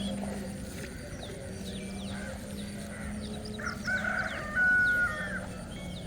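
A rooster crowing once, about four seconds in, ending on a long held note. Small birds chirp throughout.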